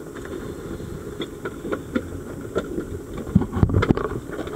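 Small dive boat's engine idling steadily, with scattered knocks and clanks of gear. A louder cluster of thumps comes about three and a half seconds in.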